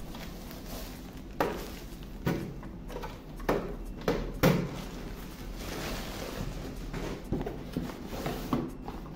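Plastic wrapper rustling and several knocks as a ZKTeco DVR, a small plastic-cased video recorder, is unwrapped and handled on a tabletop.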